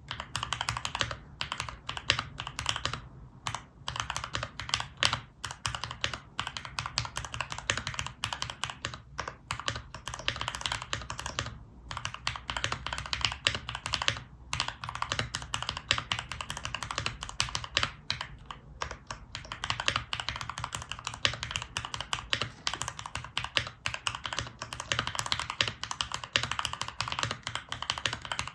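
Steady typing on a Luminkey65 mechanical keyboard with lubed and filmed Cherry MX Nixie switches, an FR4 plate and GMK keycaps: rapid, dense keystrokes with a few brief pauses.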